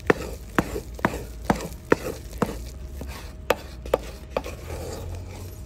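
A stirring paddle knocking against the side of a metal pot about twice a second as thick cassava-flour dough is beaten and stirred in it.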